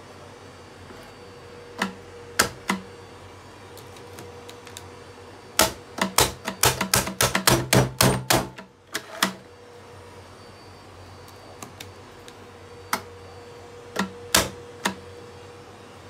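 Sharp plastic clicks and taps from a hand on the top housing and controls of a Miele S381 canister vacuum cleaner. There are three single clicks, then a rapid run of about fifteen clicks in the middle, then a few more single clicks near the end.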